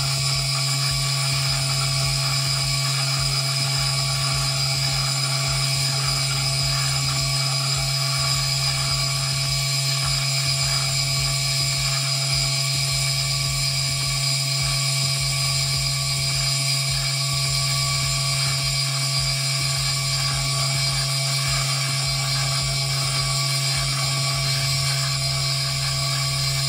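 Tabletop T.K. Homodisper disperser running at a steady speed, its motor giving a constant hum and whine with no change in pitch.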